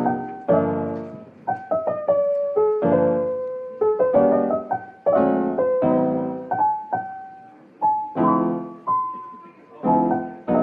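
Piano music: chords struck every second or so under a slow melody, each note left to ring and fade.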